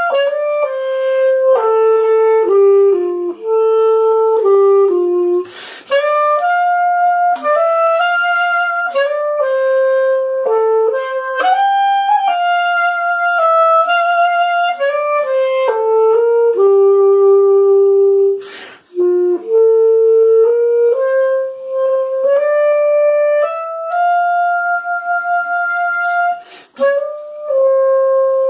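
Solo clarinet playing a slow hymn melody in single held notes, with three short pauses for breath.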